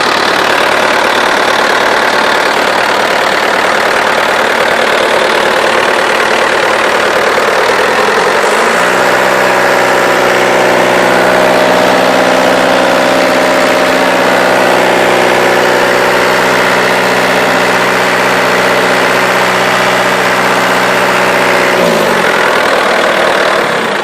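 Bobcat 863 skid steer loader's diesel engine running. It idles, is revved up about a third of the way in, holds the higher speed steadily, then drops back to idle near the end.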